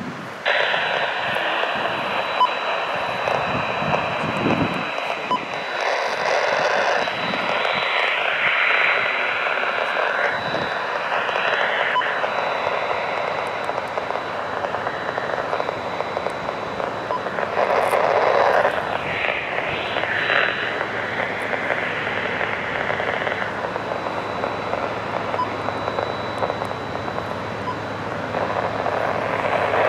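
Railroad scanner radio with its channel open, giving a steady rushing static with a thin, steady high whistle. The noise switches on abruptly about half a second in and cuts back right at the end.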